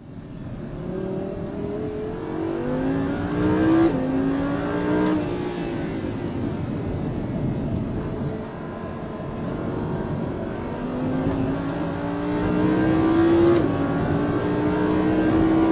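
Audi R8 V10 Plus's V10 engine accelerating hard, heard from inside the cabin. The pitch climbs and drops at quick upshifts about four and five seconds in, eases off midway, then climbs again with another upshift near the end.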